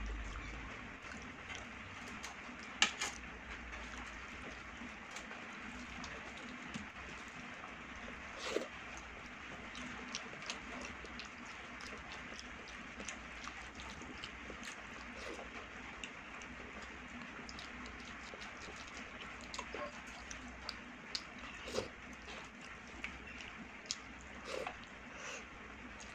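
Eating with the hand: chewing and wet mouth clicks, with fingers mixing rice and curry on a steel plate. Scattered small clicks over a steady hiss, the sharpest about three seconds in.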